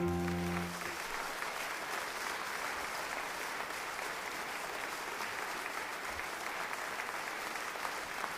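Audience applauding steadily after a song ends, while the accompaniment's last low chord dies away in the first second.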